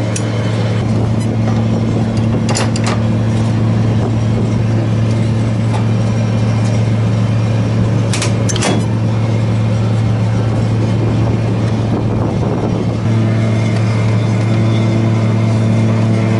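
A steady low machine hum, with a few sharp metallic clicks from the engine's core cowl latches being worked: one near the start, one a few seconds in, and two close together past the middle. The hum's tone shifts slightly near the end.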